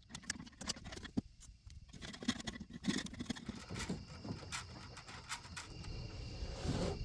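Electrical cable and fish tape being handled and pulled through the trailer underbelly: rustling and scraping with scattered light clicks.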